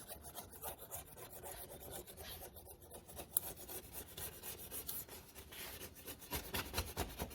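A new scraper blade scraping a glass-ceramic stove top clean in rapid repeated strokes. It is faint at first and louder from about six seconds in.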